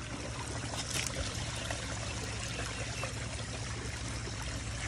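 Running water from a small creek and waterfall trickling over rocks, a steady, even rush.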